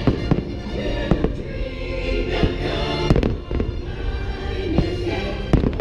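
Aerial fireworks shells bursting in a string of sharp bangs at uneven intervals, over the fireworks show's music playing through loudspeakers.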